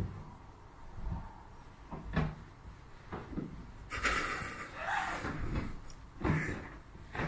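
Cats scuffling against a hooded cat bed: several dull knocks and bumps, with a longer rustling scrape about four seconds in as the bed is tipped over, and another knock near the end.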